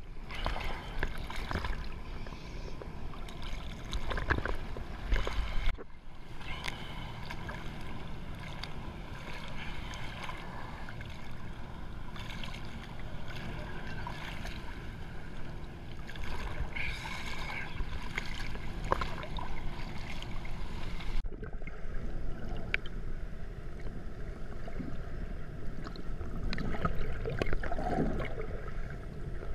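Seawater sloshing and splashing against a GoPro's waterproof housing held at the surface, a continuous choppy wash that is broken by two abrupt cuts. Near the end it turns muffled and gurgling as the camera goes under the water.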